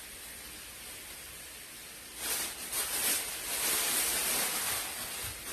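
Pork belly frying in a pan, with a faint sizzle that grows into a louder crackling sizzle about two seconds in.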